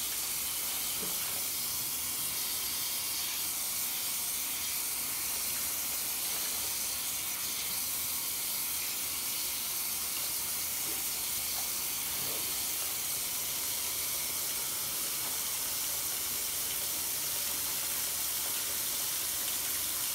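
Tap water running steadily from a bathroom faucet into a sink full of suds, splashing over a soapy sponge held and squeezed in the stream. The sound is a constant, even hiss of water.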